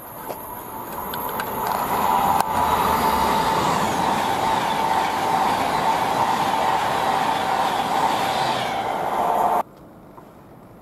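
A train passing on the line: the rumble and rush build over about two seconds, then hold loud with a steady whine running through them, and the sound cuts off suddenly near the end.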